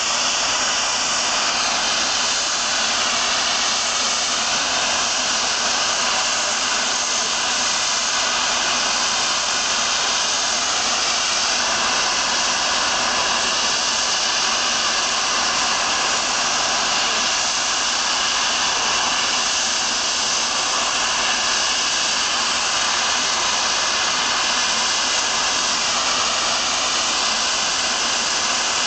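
Steady loud hiss of steam from the LMS Princess Royal class Pacific No. 6201 Princess Elizabeth standing at the platform: the safety valves blowing off, a sign of the boiler at full pressure.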